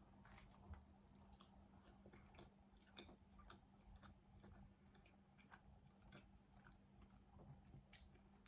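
Faint chewing of food, with scattered soft mouth clicks and small crunches, over a steady low hum.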